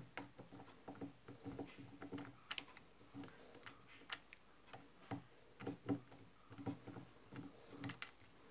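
Screwdriver turning out a small screw in a Honda Activa carburetor body: faint, irregular light ticks, about two a second.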